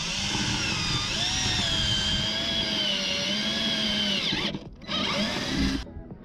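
Cordless drill with a twist bit boring a hole through a plastic kayak deck: the motor whines steadily, its pitch wavering slightly, for about four seconds, then drops and gives a brief second run before stopping near the end.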